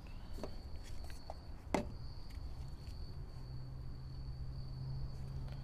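A few light clicks and knocks of gloved hands handling a rubber hose and hose clamp in a car's engine bay, over a steady high-pitched whine. A low steady hum comes in a little past halfway.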